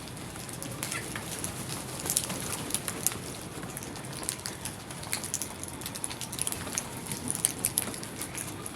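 Birds calling outdoors: many short, very high chirps scattered throughout, over a steady background of bird chatter.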